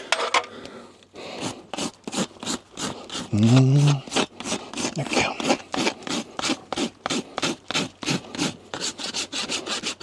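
Farrier's rasp filing over a horse's shod hoof wall in quick, even strokes, smoothing the folded nail clenches flush so no sharp edges are left. A short, low voice-like sound about three and a half seconds in is the loudest moment.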